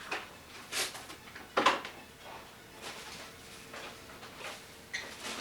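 A few short household knocks and clatters, the loudest about a second and a half in.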